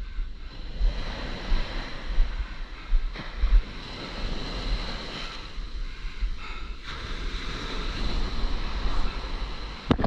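Small waves washing up over the sand and swirling around a paddleboard lying in the shallows, swelling and fading, with wind buffeting the microphone.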